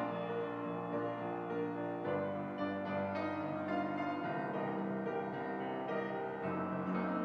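Solo grand piano playing slow, sustained chords that change about every two seconds.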